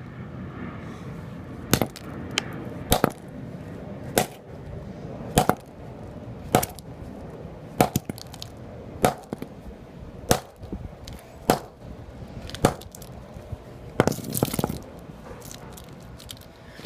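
A flip phone being smashed with repeated hard blows, about one every second and a bit, each with a sharp crack of breaking plastic and glass. Near the end a quicker flurry of hits comes in.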